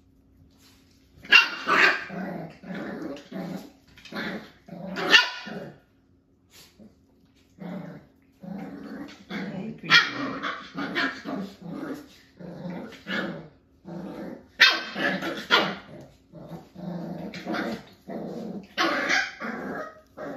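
Five-week-old Jack-A-Bee (beagle × Jack Russell terrier) puppies growling and barking at each other in rough play, starting about a second in. Sharp, high yaps stand out every few seconds.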